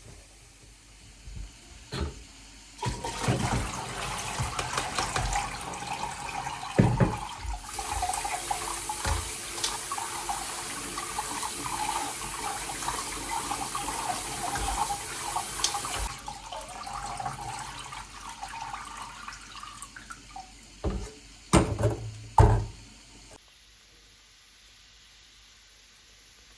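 Water running from a tap into a sink, running harder for several seconds in the middle, with a few sharp knocks and clunks; it stops about 23 seconds in.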